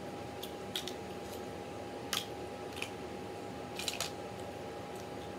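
Jonah crab claw shell being cracked and picked apart by hand: a series of short, sharp cracks and snaps, the loudest about two seconds in and around four seconds in, over a steady faint hum.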